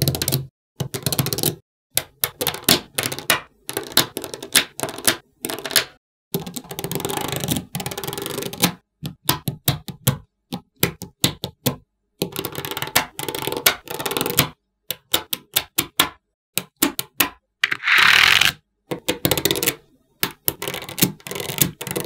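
Small magnetic metal balls clicking and clattering as they snap onto a slab of magnet balls, in quick runs of clicks broken by short silences. Near the end comes a longer rattle of many balls settling at once.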